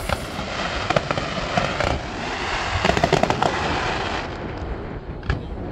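Fireworks going off: a dense run of crackling and bangs, heaviest about three seconds in, thinning out after about four seconds to a few separate pops.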